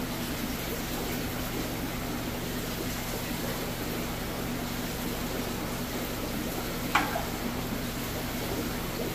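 Steady running and bubbling water from aquarium filters and air pumps, with a low steady hum. One sharp click about seven seconds in.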